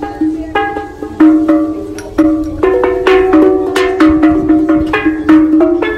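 Steel pan (steel drum) played with sticks: a run of struck, ringing metallic notes, one low note coming back again and again between higher ones.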